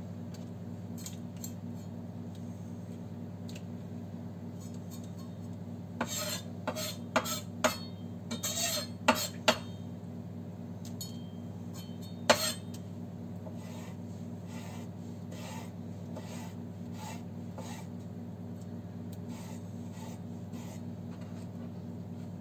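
Kitchen knife on a wooden cutting board as a red pepper is seeded and cut: a cluster of sharp knocks and scrapes a few seconds in, the loudest knock about halfway through, then soft regular cuts about every half second, over a steady low hum.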